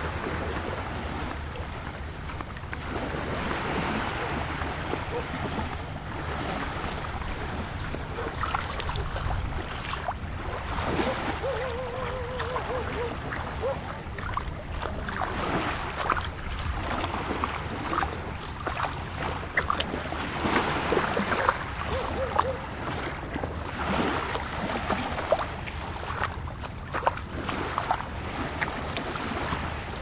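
Beach ambience: small waves washing onto sand under a steady low rumble of wind, with scattered faint clicks and taps.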